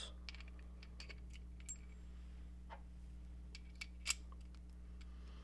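A few light, scattered metal clicks and clinks of a steel spinner adapter, ratchet and socket being handled and fitted together, the sharpest about four seconds in.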